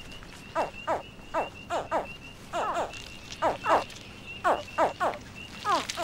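American alligator hatchlings calling from the nest: about a dozen short, high chirps that slide downward in pitch, often in quick pairs, the cries that summon the mother to dig them out.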